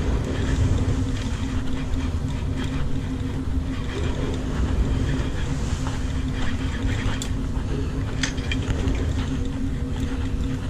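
Steady drone of a ship's machinery with a constant low hum, with wind buffeting the microphone. A few light clicks come in the second half.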